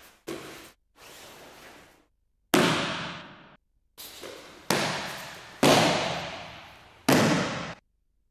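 Aikido breakfalls: bodies and hands slapping the training mat as partners are thrown, about six thuds of which four are loud, each fading in an echoing hall.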